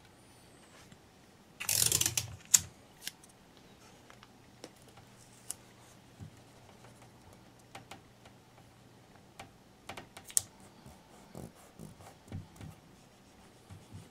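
A strip of masking tape pulled off the roll with a short ripping sound about two seconds in, followed by scattered small clicks and rubs as the tape is handled and pressed down across a glued porcelain seam.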